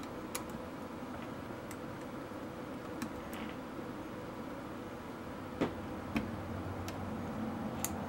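Faint, scattered small clicks and taps as a screwdriver tip and fingers work a short ribbon cable into its connector inside a Canon Rebel T3 camera body, with two slightly louder clicks a little past the middle.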